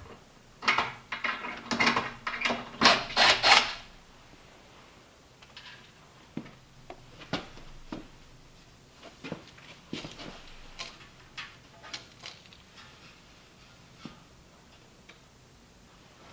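Hands working a sheet-metal stovepipe wall plate. A run of loud scrapes and knocks fills the first few seconds, then scattered light clicks and taps follow as a tape measure is used against the plate.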